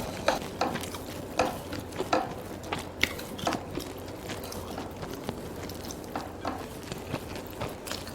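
Eating sounds close to the microphone: irregular crisp crunching and chewing clicks, denser in the first few seconds and softer after that.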